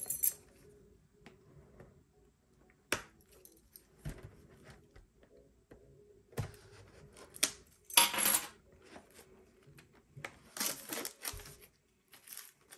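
Hands opening a cardboard Pokémon card booster bundle box: scattered clicks and taps with a few short rustles as the end flap is pulled open and the packs are handled.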